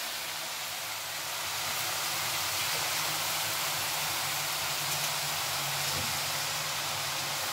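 Chopped water spinach (kolmi saag) sizzling in a kadhai on a low gas flame: a steady, even hiss as the wet greens cook down in their own water.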